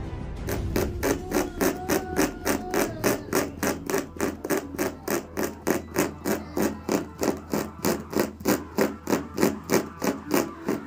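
Quick, even scraping strokes over a carpet's pile, about four a second, as a damaged patch is worked by hand during repair.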